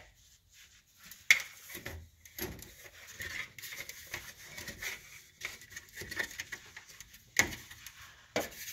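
Handling noise: scattered small clicks, taps and faint rustling, with a sharper click about a second in and another near the end.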